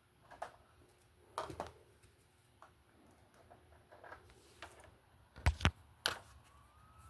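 Scattered clicks and knocks, with two loud thumps about five and a half seconds in and a third soon after. A faint, thin rising tone starts near the end.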